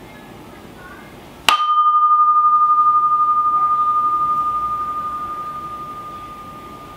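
A sculpture vessel struck once, then ringing with a single clear, high tone. A higher overtone dies away almost at once, while the main tone wavers slightly as it fades slowly over several seconds.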